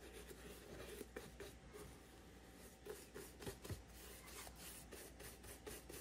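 Faint, irregular strokes of a paintbrush brushing and dabbing paint onto a wooden drawer front, with a low steady hum beneath.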